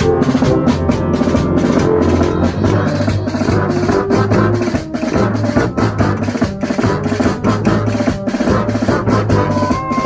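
Brass band playing with a drum kit: a steady drum-kit beat with cymbals over held low notes from the tubas and basses. Near the end higher melody notes come in above them.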